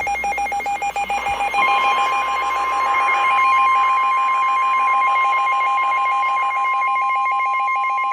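Emergency Alert System attention tones: a loud, rapidly warbling two-pitch electronic tone, joined about a second and a half in by a steady single high tone that holds on.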